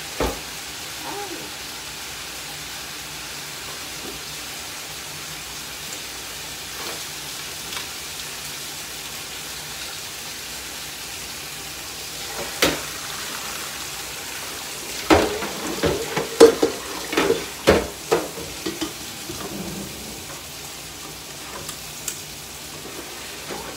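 Kitchen tap running steadily into a stainless-steel sink as somen noodles are rinsed in a colander. About halfway through come a cluster of sharp metal knocks and clatters from the pot and colander against the sink.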